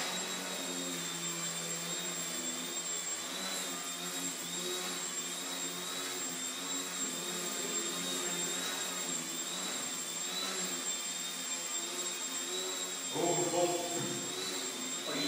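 Electric motor and propeller of an indoor Depron Yak 55 model aeroplane whining steadily while it hovers nose-up, the pitch wavering up and down as the throttle is worked.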